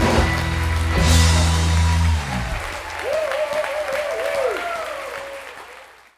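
A live rock band's closing chord ringing out, with cymbal crashes at the start and about a second in, cut off about two seconds in. Audience applause and cheering carry on after it, then fade out near the end.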